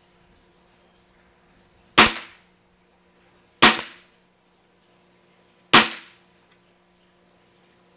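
Three shots from a Diana Stealth .22 break-barrel air rifle fitted with a moderator. Each is a sharp crack that dies away within about half a second, about two seconds apart.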